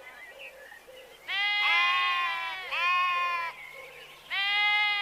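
Livestock bleating: a run of long, high bleats starting about a second in, then another bleat near the end.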